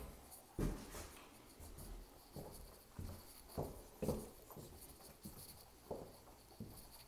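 Footsteps on hard floors, wood parquet then stone tile: short, irregular thuds about two a second over a faint hiss.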